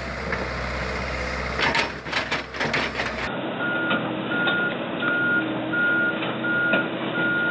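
Heavy diesel machinery running, with several metallic clanks about two seconds in. After a cut, a backup alarm beeps steadily, roughly every 0.7 seconds, over the engine.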